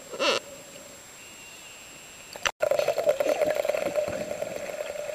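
Dolphin whistles heard underwater: a short loud call, then a thin wavering whistle. After a sudden cut, a boat engine running with a steady pulsing hum.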